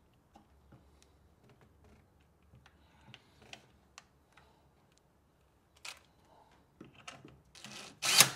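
Scattered light clicks and taps of ring terminals and hardware being handled at a golf cart motor controller, with a short louder noisy sound near the end.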